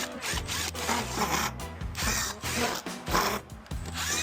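Background music with a steady bass line and beat.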